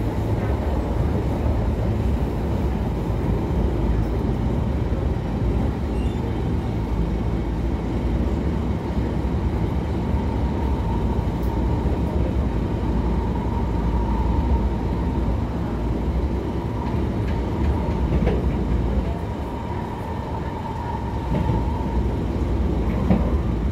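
SMRT C151 metro train running at speed, heard from inside the carriage: a steady rumble of wheels on rail and running gear. A faint high hum rises and fades in the second half.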